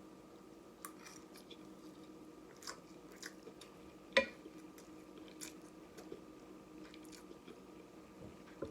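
A person chewing a mouthful of noodles and fish close to the microphone: scattered short wet mouth clicks and smacks, one louder click about four seconds in.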